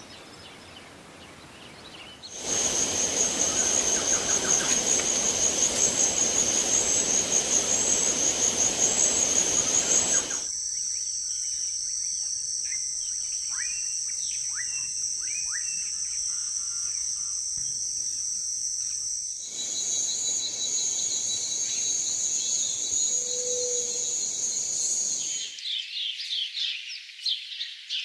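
Forest ambience of insects and birds, edited in several segments that change abruptly. A steady high insect drone pulses at first and later holds level, with bird whistles and chirps over it. Near the end come quick runs of repeated bird calls.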